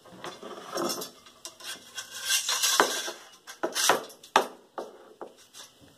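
A steel saber blade sliding in its steel scabbard, a rasping metal-on-metal scrape, followed by several sharp metallic clicks and clinks.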